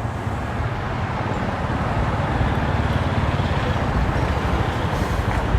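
Steady road-traffic noise with the low hum of a motor vehicle's engine, gradually getting a little louder.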